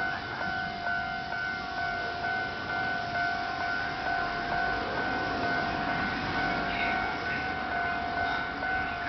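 Japanese railway level-crossing alarm ringing: an electronic ding in two steady pitches, repeating rapidly and evenly without a break. This is the crossing's original alarm sound, before it was replaced.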